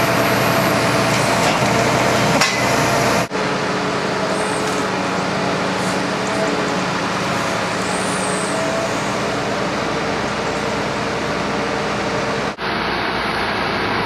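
Engine of a lorry-mounted hydraulic timber grab crane running steadily under load while the crane lifts log sections, a steady drone with a thin whine over it. The sound drops out briefly about three seconds in and again near the end.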